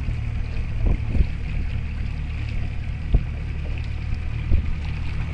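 Boat motor running steadily at low trolling speed, with a few short thumps about a second in and again about three seconds in.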